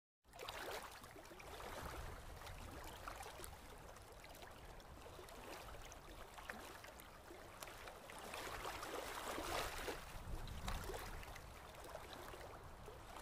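Ocean surf washing onto a sandy beach, a faint steady rush that swells and eases.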